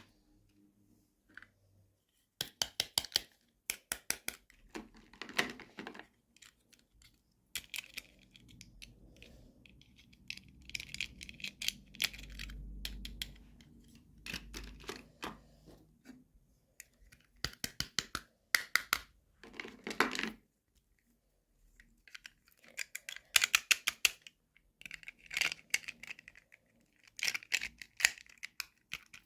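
Toy packaging being unboxed by hand: plastic and paper crinkling and tearing in short, irregular bursts, with small clicks and gaps in between.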